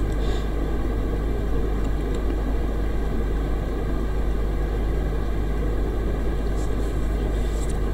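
A steady low hum with a constant hiss over it: the recording's background noise.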